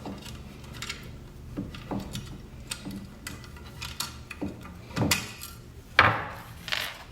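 Scattered knocks, clicks and rubbing from car parts and hardware being handled and set down, with the loudest knock about six seconds in.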